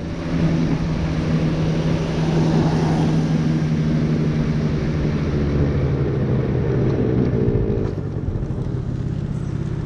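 A motor scooter's engine drones steadily under way after picking up speed in the first half second, with a rush of road and wind noise. It eases off about eight seconds in as the scooter slows.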